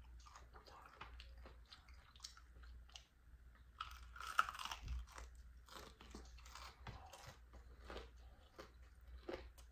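A bite into a piece of fried catfish with a crisp cornmeal, flour and cornstarch crust, with the loudest crunch about four seconds in, then close chewing full of small crunchy crackles.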